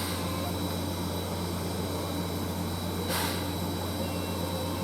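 A standing steam locomotive running steadily: a constant low mechanical hum with a thin high whine over a steady hiss. A brief surge of hiss comes about three seconds in.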